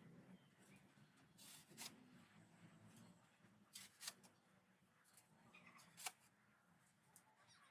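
Near silence with a few faint, short scraping sounds, each a second or two apart.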